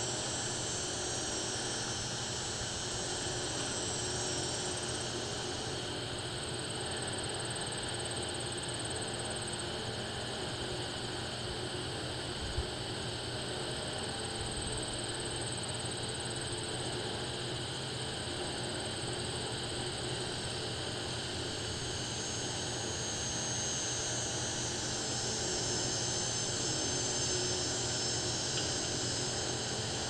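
Steady high-pitched insect chorus, like crickets, its pitch shifting a little about six seconds in and again near the end, over a low steady rumble.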